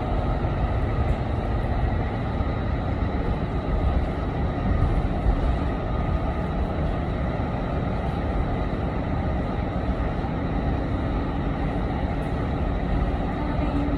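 Automated driverless train running between stations, heard from inside the carriage: a steady rumble with a faint constant high whine.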